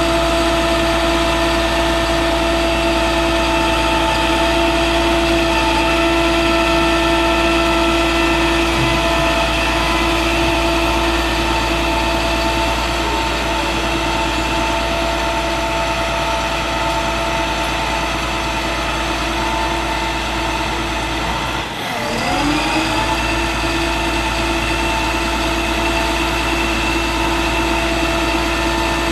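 International MaxxForce DT 7.6 L inline-six diesel of a bucket truck running steadily with its PTO driving the boom hydraulics, a steady whine of even tones. About 22 seconds in, the pitch drops sharply and climbs back up.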